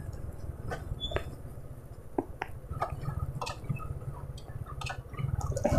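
Motorcycle ride heard from a phone mounted on the bike: a steady low engine and road rumble with scattered small clicks and ticks, growing louder near the end.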